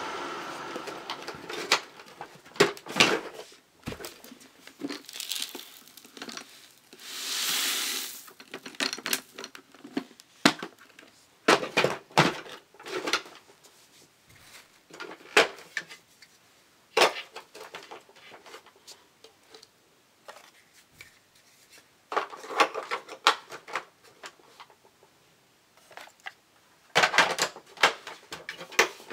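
A Hoover WindTunnel upright vacuum's motor winding down after being switched off. Then come rustling, crinkling and scattered clicks as dry seed-like debris is poured out onto the carpet, with one steady pouring hiss about seven to eight seconds in.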